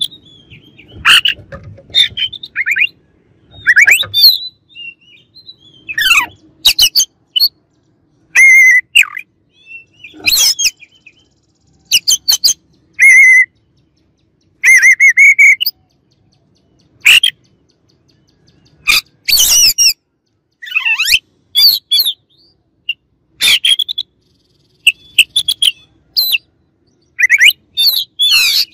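Oriental magpie-robin singing a loud, varied run of short phrases: clear whistles, chirps and sweeping notes, some buzzy trills held near one pitch, with brief pauses between phrases.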